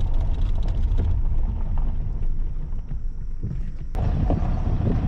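Car rolling slowly up a gravel driveway, heard from inside the cabin as a steady low rumble with light crackles of gravel under the tyres. About four seconds in, it cuts sharply to wind buffeting a microphone outdoors.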